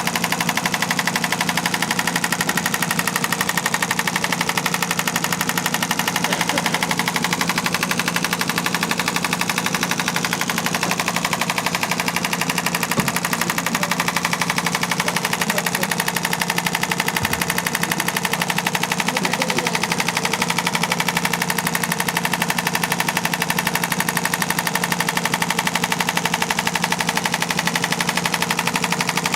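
Radial shockwave therapy device pulsing against the neck and upper back, a rapid, even train of sharp taps over a steady machine hum.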